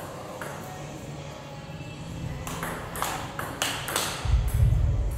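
Table tennis ball clicking off bats and table in a rally, about six hits coming quicker toward the end. Then a loud low thump about four seconds in.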